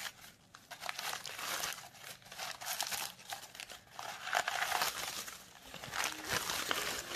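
Crumpled newspaper packing and a plastic wrapping bag crinkling and rustling continuously as they are pulled off a ceramic bowl by hand.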